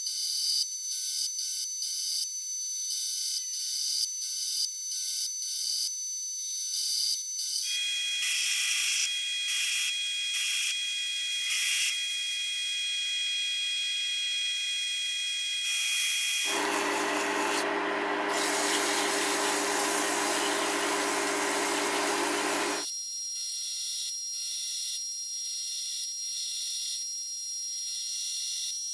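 Chinese benchtop metal lathe running with a steady high-pitched whine and a fine crackle as the tool cuts an aluminium workpiece. The tone changes abruptly three times, with a fuller, lower hum for about six seconds past the middle.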